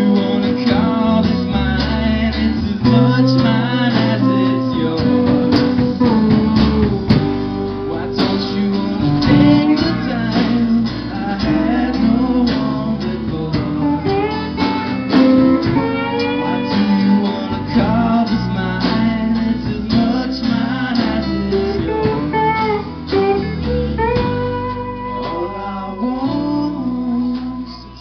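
Live band playing a song: strummed acoustic guitar, electric bass and a drum kit, with a man singing.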